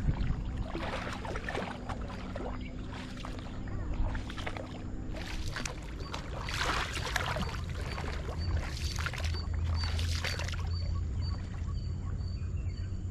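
Coracle paddle strokes swishing and splashing in the river, irregularly about once a second, stopping about ten seconds in, over a steady low rumble.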